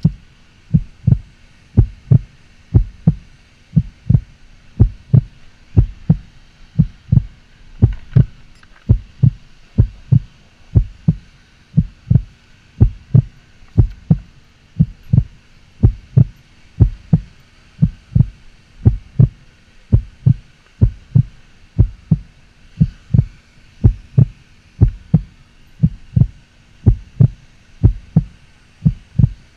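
Loud, regular low thumps, about two a second, in a heartbeat-like rhythm over a faint steady hum.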